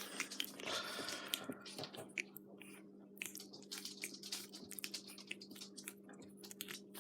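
Pug puppies play-biting and mouthing one another: many small irregular wet clicks, smacks and nibbling sounds, over a steady low hum.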